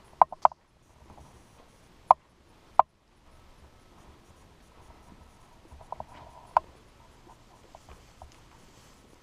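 A few sharp clicks and taps at irregular intervals: a quick cluster at the start, two single ones a couple of seconds in, and another group near two-thirds of the way. A faint steady thin whine runs through the middle few seconds.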